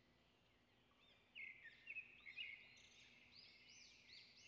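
Near silence, with faint high chirps of a bird starting about one and a half seconds in.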